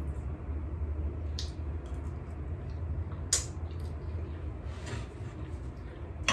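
A fork clicking against a plate a few times while someone eats, the sharpest click about three seconds in, over a low steady hum.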